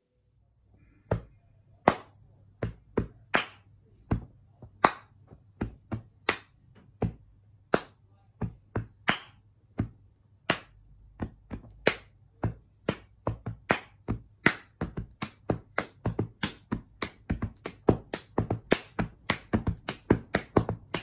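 Hands clapping and patting the chest in rhythmic body-percussion patterns, sharp separate strikes with no music. The strikes come sparse and irregular at first, then from about halfway grow into a steadier run of two or three a second.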